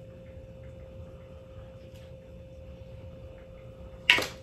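Quiet handling of a cooked snow crab leg in gloved hands over a faint steady hum, then one sharp, loud crack of crab shell about four seconds in.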